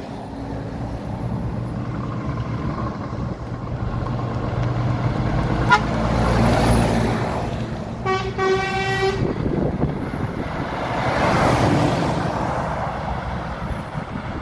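Logging trucks passing close by, their diesel engine and tyre noise swelling twice as trucks go past. About eight seconds in, the approaching Volvo FH sounds one steady horn blast lasting about a second.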